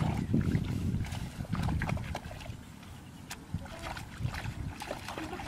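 Shallow muddy paddy water splashing and sloshing as people wade and dig through it, heaviest in the first two seconds, with a few sharp small clicks.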